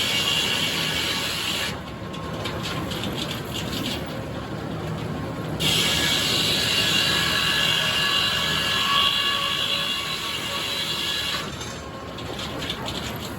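Inserted-tooth circular sawmill saw cutting red oak in two passes, a loud steady sawing noise for several seconds each. Between and after the cuts the blade noise drops away and the mill gives off a quieter mechanical clatter of rapid clicks.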